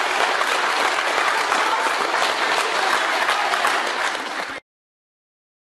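Audience of children and adults applauding, a dense steady clapping that cuts off suddenly about four and a half seconds in.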